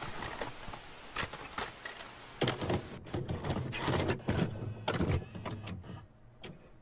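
Video cassette recorder mechanism going from stop to play. A hiss with scattered clicks comes first, then a run of mechanical clicks and low clunks from about two and a half to five seconds in, then a few faint clicks.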